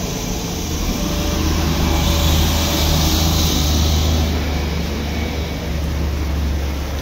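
Traffic on a wet cobblestone street in the rain: a steady hiss over a low engine rumble, swelling a couple of seconds in, as a motorcycle rides past.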